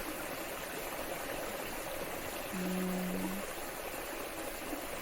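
Waterfall and stream water rushing steadily. A short steady hum sounds briefly about halfway through.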